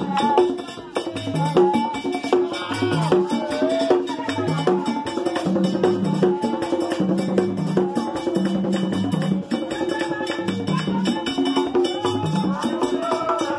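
Haitian Vodou drumming on peg-tuned hand drums, with sharp stick clicks keeping a fast steady rhythm, under a wavering sung melody from a singer on a microphone and the group.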